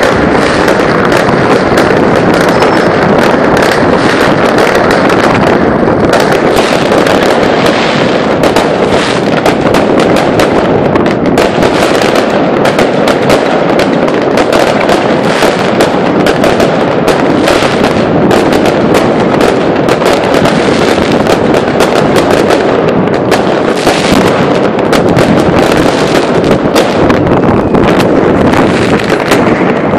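Many aerial fireworks and firecrackers going off at once all around: a loud, unbroken barrage of overlapping bangs and crackling.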